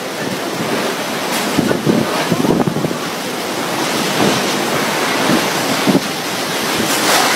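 Tropical-storm wind blowing hard and buffeting the microphone, a continuous rush of noise that surges in gusts.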